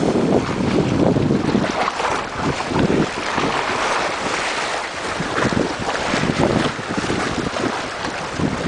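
A pit bull hits the sea with a splash near the start, then water sloshing and splashing as it swims, under heavy wind buffeting on the microphone.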